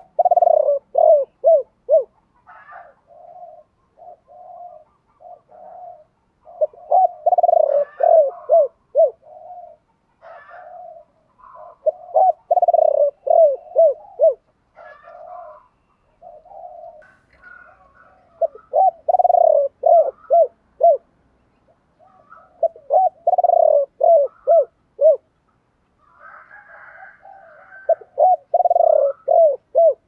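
Spotted dove cooing: loud phrases of several short, falling coos repeated about every five seconds, with softer coos between them.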